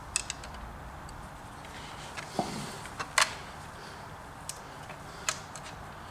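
Scattered light metal clicks and clinks of a chainsaw chain being worked by hand onto the bar and drive sprocket, with a louder knock about three seconds in.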